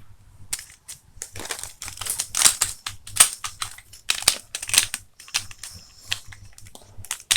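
Hard plastic clicking and rattling as a Beyblade top is fitted onto its launcher and handled before a launch: irregular small clicks, several a second.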